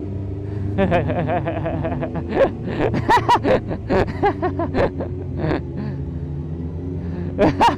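Motorcycle engine running steadily at low revs, climbing a steep hill with the risk of stalling. A voice talks over it for a few seconds in the middle.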